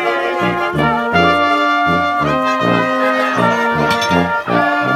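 Live brass band playing a polka: evenly pulsing bass notes, about two to three a second, under a held brass melody.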